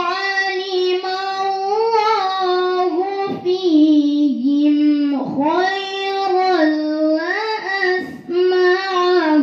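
A woman reciting the Qur'an in melodic tilawah style into a microphone: a single voice holding long, ornamented notes, with short breaks for breath between phrases.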